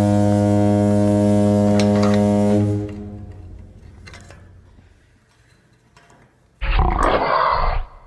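Dubbed-in sound effects. A low, steady horn-like blast ends and fades out about three seconds in. Then, a little after six seconds, a loud roar sound effect of about a second and a half cuts off abruptly.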